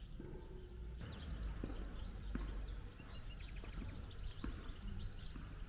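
Small birds chirping, with a short rapid trill about three seconds in, over a steady low rumble. A few faint knocks, like steps, come through.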